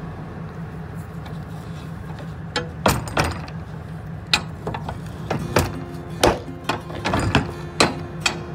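A series of about ten irregular knocks and thumps over a steady low hum, starting a few seconds in.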